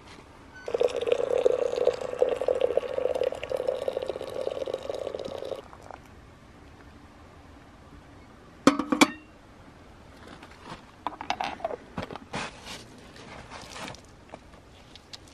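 Water running from a samovar's tap into a porcelain teapot for about five seconds. About nine seconds in comes a sharp clink as the teapot is set down on the samovar's crown, followed by a few light knocks and rustles.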